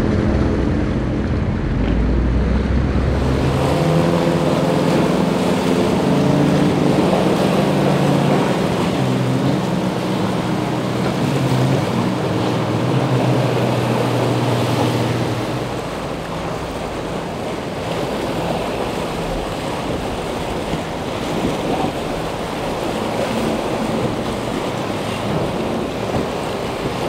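Motorboat engines running, their steady drone fading out about halfway through, over wind noise on the microphone and the rush of surf.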